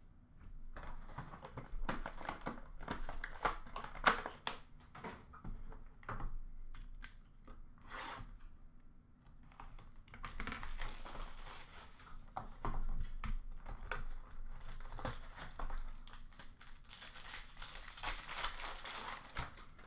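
Hockey trading card pack wrappers being torn open and crinkled by hand, in several irregular bouts of rustling. The longest crinkling comes in the middle and near the end.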